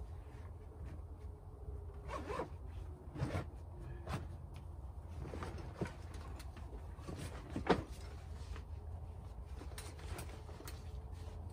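Things being handled: irregular rustling, clicks and knocks, with the loudest knock about two-thirds of the way through.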